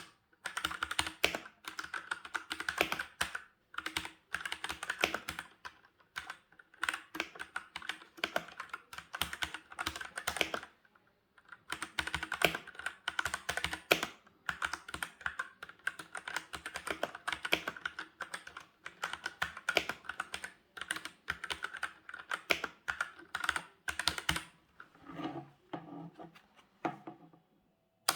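Typing on a Redragon K628 Pollux mechanical keyboard fitted with red switches: a fast, continuous run of key strokes, with a short pause about eleven seconds in and a thinner patter near the end.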